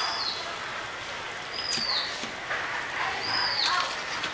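Prawn curry simmering and sizzling in a pan, a steady hiss. Over it a bird calls three times, each a short high whistle falling in pitch, about every second and a half.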